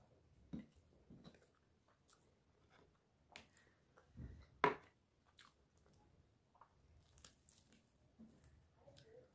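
Faint chewing and mouth sounds of someone eating khichdi and fried eggplant by hand, with small scattered clicks. About halfway through comes a dull thud and then a sharp click, the loudest sound, as a small cup of tomato chutney is tipped against the plate.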